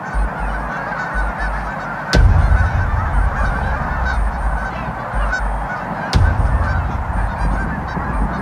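A large flock of geese honking in flight, many calls overlapping into a continuous din. A sharp thump about two seconds in and again about six seconds in, each followed by a low rumble.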